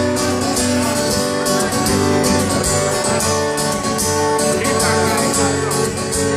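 Acoustic guitar strummed in a steady rhythm, an instrumental passage of a live folk ballad with no singing.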